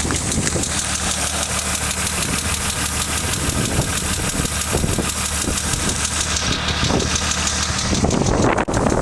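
1995 BMW M3 straight-six idling with a fast, even lifter tick over the engine note, a tick that the owner says got worse after switching to 20w50 oil. A brief rise in noise near the end.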